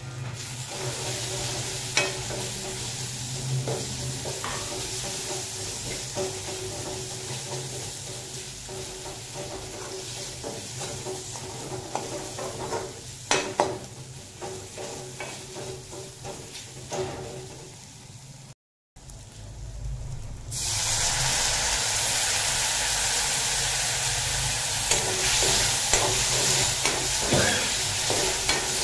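Onion-tomato masala with ground spices frying in oil in a metal kadai, sizzling steadily as a metal spatula stirs and scrapes it, with sharp clicks of the spatula against the pan. The sound cuts out for a moment about two-thirds of the way through, and the sizzling comes back louder.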